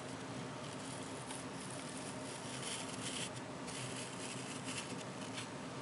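Faint rubbing and light clicking of hands fitting the gear key into a 3D-printed plastic Raspberry Pi case, over steady room hiss, with the handling noises clustered in the middle.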